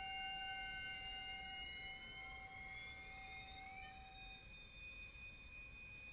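String quartet playing soft, high, long-held notes that slide slowly upward in pitch; a lower held note drops out about two-thirds of the way through.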